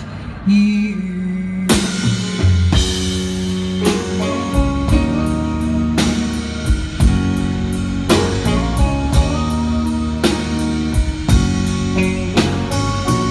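Live country music: a female singer with a band of drum kit and guitar. A held note opens, and from about two seconds in the drums keep a steady beat under the band.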